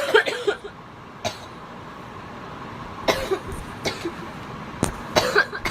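A woman coughing repeatedly, about six short coughs coming singly and in pairs over a few seconds, set off by inhaling cannabis smoke from a bong.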